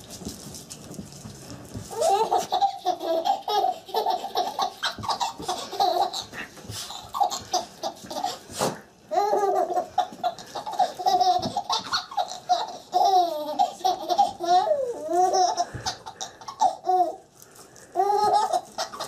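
A baby laughing hard in long runs of high-pitched giggles, starting about two seconds in, with a brief pause about halfway and another near the end.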